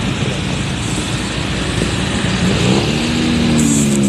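Street traffic with vehicle engines running close by; about two and a half seconds in, one engine's pitch rises and then holds steady. A brief high-pitched sound comes near the end.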